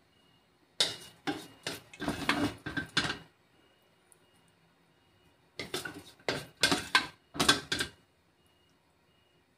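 A spatula scraping and knocking against a wok as fried tofu is scooped out and served. It comes in two bursts of several quick clattering strokes: one starting about a second in, and another around six seconds in.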